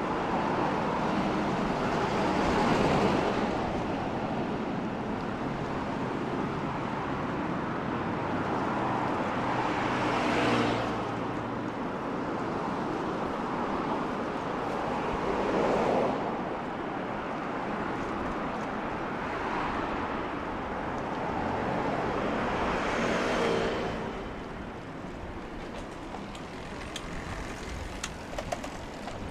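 Road traffic: cars passing one after another on wet asphalt, tyres hissing. About four louder passes swell and fade away, and the traffic grows quieter near the end.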